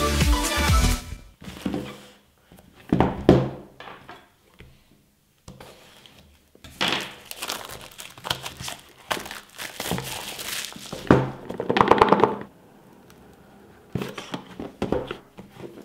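Plastic shrink-wrap crinkling and tearing as it is pulled off a cardboard smartphone box, with knocks from the box being handled, then the box lid being pulled open.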